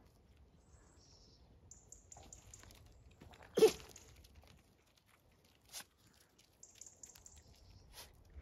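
A puppy and a cat scuffling and chasing on loose gravel: light crunching and scraping of paws on the stones. About three and a half seconds in there is one short, sharp, loud sound, the loudest moment, followed by a couple of fainter clicks.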